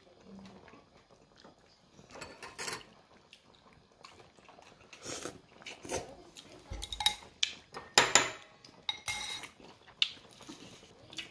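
Chopsticks clinking and scraping against a bowl in a run of irregular clatters, loudest about eight seconds in.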